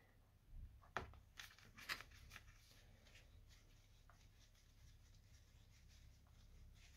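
A few faint clicks and taps of a tool and small metal parts being handled on a scooter carburetor, as the slide and its cover are taken off, in roughly the first two seconds; otherwise near silence.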